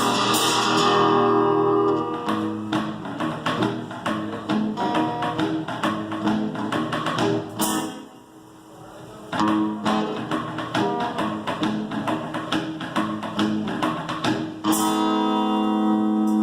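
Acoustic guitar and cajon playing together in a quick, steady rhythm, thinning out briefly about eight seconds in. Near the end comes a loud strummed chord left ringing.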